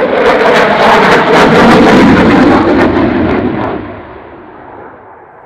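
Dassault Rafale's twin M88 jet engines on a close, loud fly-by: a crackling rumble that peaks and then fades away about four seconds in.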